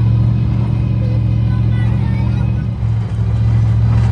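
Motor vehicle running steadily, a loud low drone of engine and road noise with a brief dip about three seconds in.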